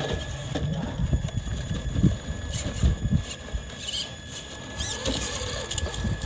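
Traxxas TRX-4 Sport RC crawler climbing a rock pile: its electric motor and drivetrain whirring under load, with irregular knocks and scrapes of the tires and chassis against the stones.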